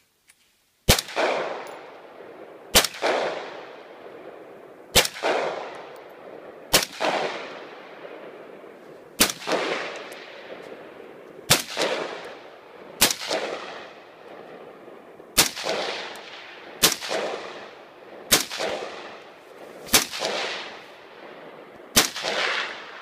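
AR-15 rifle fired in single semi-automatic shots, about a dozen at an unhurried, uneven pace of one every two seconds or so. Each crack trails off in a long echo.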